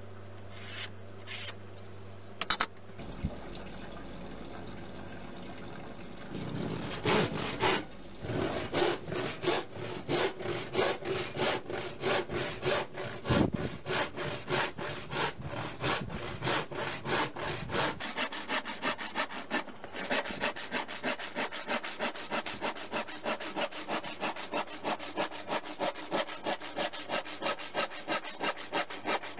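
Hand saw cutting through an MDF sheet in quick, even back-and-forth strokes. A few light clicks come before the sawing starts.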